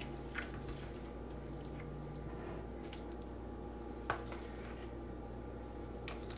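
Faint wet scooping and plopping as a plastic slotted spoon lifts moist cornbread dressing from a plastic bowl and drops it into a cast iron skillet, a few soft clicks, the clearest about four seconds in. A low steady hum runs underneath.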